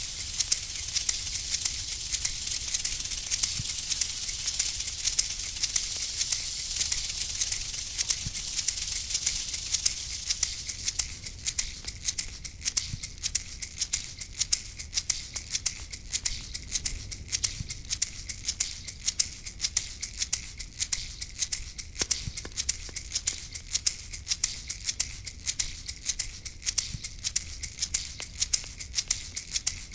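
Shaker rattle shaken in a steady rhythm, a few sharp strokes a second. A high hiss underneath fades away about ten seconds in.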